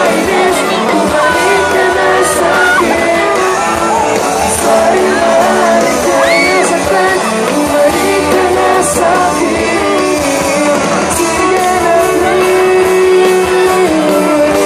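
Live pop-rock band playing, heard from within the concert crowd: a sung melody over guitars and the rest of the band.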